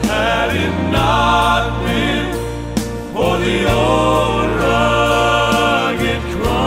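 Southern gospel male vocal quartet singing with instrumental accompaniment, over steady sustained low bass notes.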